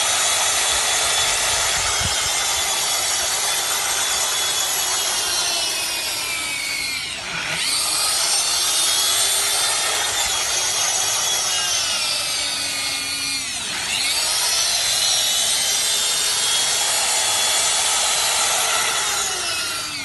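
Electric grinder running at high speed with a high-pitched whine; its motor speed drops sharply and climbs back about three times.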